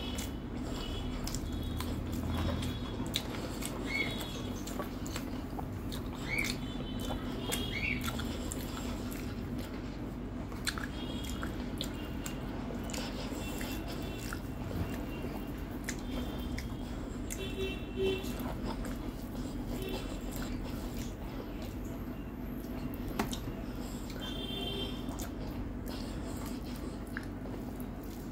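A person chewing and eating rice and fried food by hand, with small wet clicks and smacks scattered over a steady low hum.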